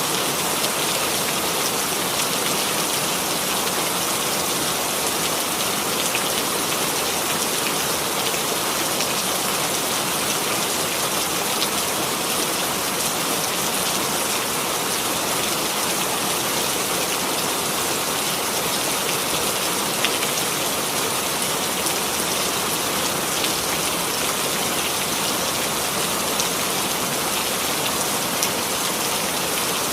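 Steady rain falling, a dense even hiss with scattered small drop patters.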